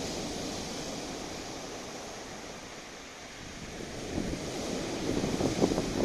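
Rough sea: surf washing and breaking in a steady rush that swells about four seconds in. Near the end, wind buffets the microphone in jagged gusts.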